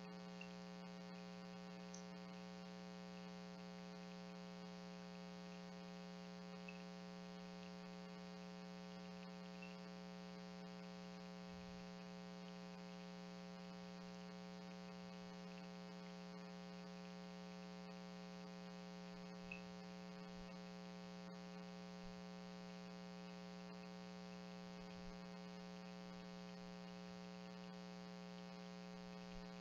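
Faint, steady electrical hum made of many evenly spaced overtones, strongest at the low end, with a few faint ticks scattered through it.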